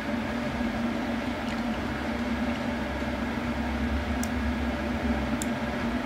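Steady machine hum with a constant low tone, with two faint clicks about four and five and a half seconds in.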